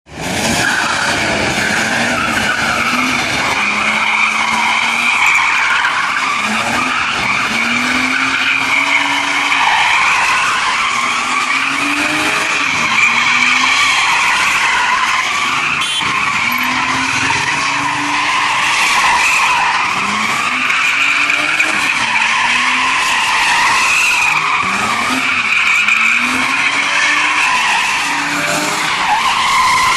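BMW E36 328i's straight-six engine revving again and again in rising sweeps while its rear tyres squeal without a break as the car drifts.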